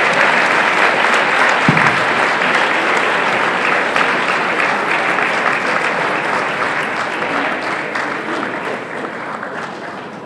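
Audience applauding, the clapping thinning out and dying down over the last few seconds.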